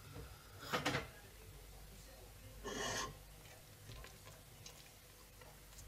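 A spatula scraping and stirring through saucy shredded cabbage in a stainless steel pot: two short scrapes, the first about a second in and the louder, the second about three seconds in.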